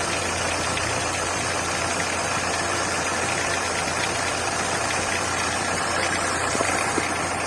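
Volkswagen Gol G5 engine idling steadily, with the odd running noise that was later traced to a worn air-conditioning compressor belt.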